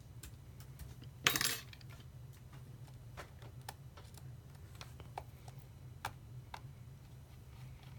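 Small metal laptop parts, screen brackets and tiny screws, clinking as they are handled and fitted: one brief clatter about a second in, then scattered light clicks and ticks over a faint low hum.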